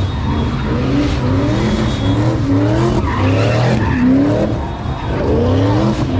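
Car engine revving hard again and again, its pitch climbing about twice a second, over tyre screech: a car spinning donuts in its own tyre smoke.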